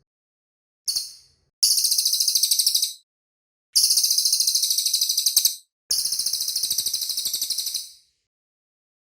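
Cililin bird singing: four bursts of very high, rapid trilling. The first is short, about a second in, and three longer trills of about one and a half to two seconds each follow with brief gaps.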